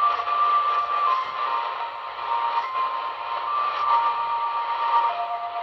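Shortwave broadcast on 5800 kHz heard through a portable radio's speaker: steady static hiss with a few held tones that step to new pitches every second or so.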